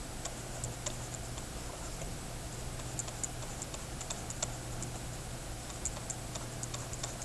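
Faint, irregular light taps and clicks of a pen stylus on a writing surface while an equation is handwritten, over a low steady hum.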